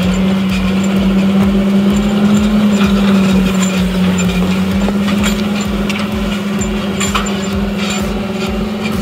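John Deere 8430 tractor's 9.0-litre six-cylinder turbo diesel running steadily at full throttle under heavy draft load, pulling a subsoil ripper through the ground. Scattered sharp ticks sound over the engine.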